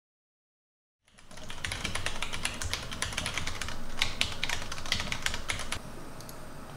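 Silence for about a second, then fast typing on a mechanical keyboard: a dense run of key clicks that stops about a second before the end, leaving a faint steady background.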